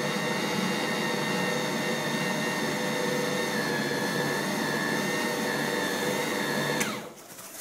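Electric food processor motor running steadily while it kneads bread dough in the bowl. Near the end the machine is switched off and its whine winds down.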